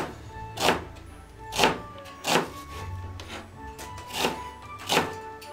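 Kitchen knife slicing an onion into thin half rings on a plastic cutting board: about seven separate cuts, each ending in a sharp tap on the board, roughly one a second. Background music plays underneath.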